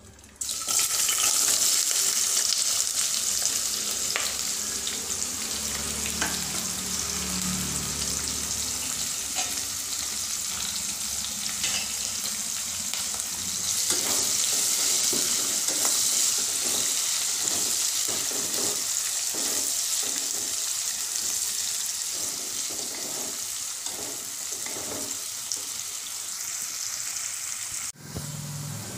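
Sliced onions and green chillies sizzling in hot mustard oil. The steady frying hiss starts suddenly as they go into the pan and is overlaid by the light scrape and tap of stirring.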